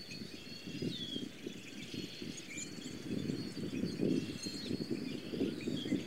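Wild birds chirping, with short chirps and a thin, steady high trill, over a louder, uneven low rumble of wind on the microphone.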